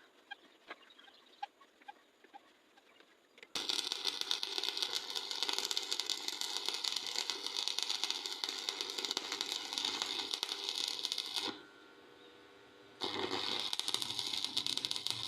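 Electric arc welding: a loud, dense crackle that starts suddenly a few seconds in, breaks off for about a second and a half, then strikes up again. Before it come a few faint clicks.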